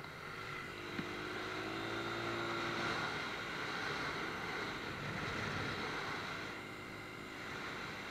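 Small dirt bike engine running while riding, with wind noise on the microphone; it grows louder over the first few seconds and eases off again near the end. There is a single sharp click about a second in.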